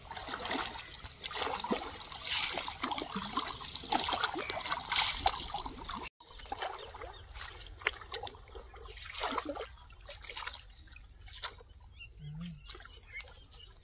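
Plastic oar blades splashing and dripping as an inflatable dinghy is rowed, about one stroke a second. The splashing breaks off sharply about six seconds in and goes on softer after that.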